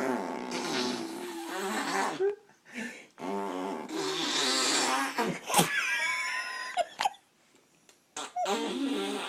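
A person blowing raspberries and making voiced mouth noises in runs of a second or two, with a couple of sharp lip pops and a squeaky higher sound about six seconds in, then a pause of about a second near the end.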